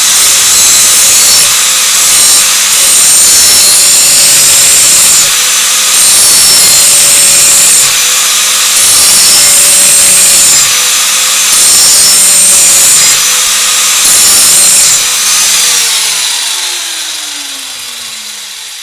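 Electric angle grinder with a grinding disc sharpening the cutting edge of a steel lawnmower mulching blade, run along the edge in repeated passes of a couple of seconds each. Near the end it is switched off and its pitch falls as the disc spins down.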